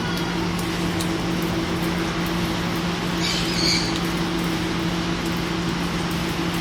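A steady low machine hum over even background noise, with a short high chirp-like call about three seconds in.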